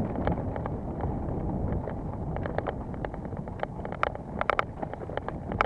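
Mountain bike rolling over a rough trail: wind buffeting the microphone and a steady rumble, with frequent irregular sharp clicks and rattles.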